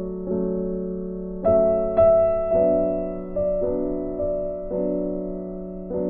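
Background music: slow, soft piano chords with new notes struck every half second to a second and left to ring.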